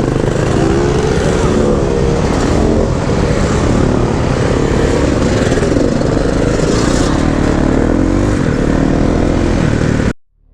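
Dirt bike engine running and revving up and down, its pitch rising and falling, over a steady rushing noise. It cuts off abruptly near the end.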